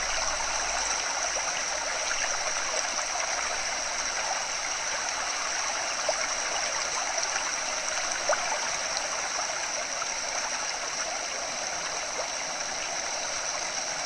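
Floodwater flowing steadily through a drainage ditch, an even rush and trickle of running water with a few faint ticks.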